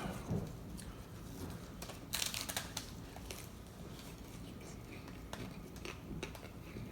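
Faint rustling and small clicks of paper taco wrappers being handled, with a short, louder crinkle about two seconds in.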